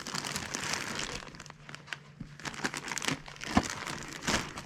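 Crinkling and rustling, like material being handled, starting abruptly, with a few sharp knocks; the loudest knock comes about three and a half seconds in and another follows just before the end.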